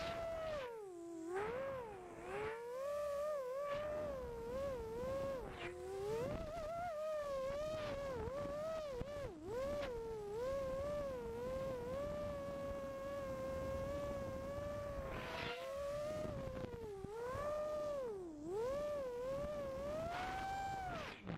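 FPV racing quadcopter's motors and propellers whining, the pitch rising and falling continuously as the throttle is worked, with a few quick drops where the throttle is cut.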